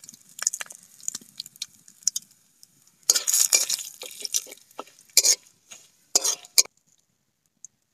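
A flat metal spatula scraping and stirring in a large aluminium wok, turning cumin seeds, bay leaves and dried red chillies that sizzle in hot oil. The scraping strokes come in bunches from about three seconds in and stop shortly before the end.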